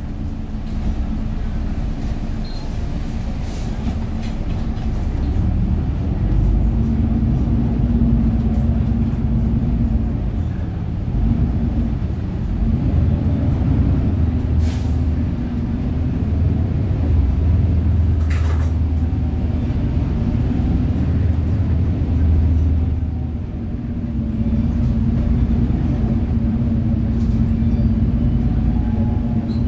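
Inside a moving city bus: engine hum and road noise that rise and fall with the bus's speed, dropping briefly about two-thirds of the way through before picking up again. Two short sharp sounds come near the middle.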